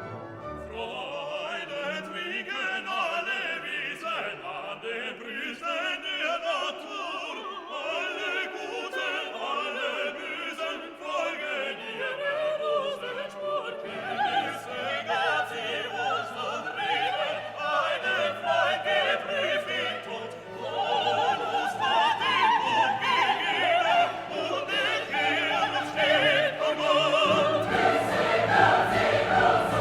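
Classical music for orchestra and operatic singers, getting louder and fuller in the second half.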